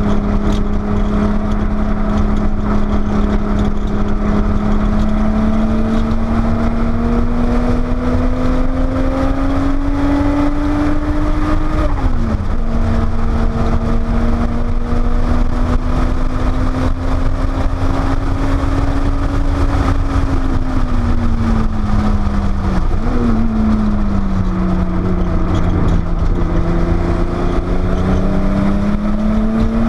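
Porsche 930 Turbo's air-cooled turbocharged flat-six pulling hard on track. Engine note climbs steadily, drops sharply at an upshift about twelve seconds in, holds, then falls off under lifting and braking with a quick blip about two-thirds through, before climbing again under power. A constant heavy rumble of wind and road noise runs underneath.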